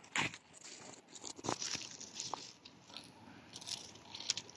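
Dry coconut fronds and husk fibres crackling and rustling as they are brushed past and handled, with a few sharp clicks.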